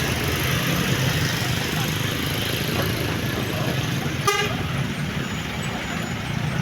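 Loaded truck's engine running steadily under road noise, with one short vehicle horn toot about four seconds in.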